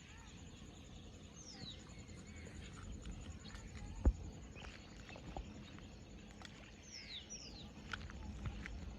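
Quiet outdoor ambience with a few short, high, falling bird whistles: one about a second and a half in and two close together around seven seconds. A single thump about four seconds in.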